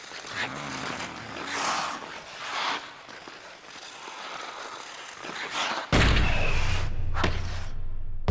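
Cartoon sound effects of hockey skates scraping across ice in a few swishes. About six seconds in comes a sudden heavy thud with a low rumble under it, and a sharp crack about a second later.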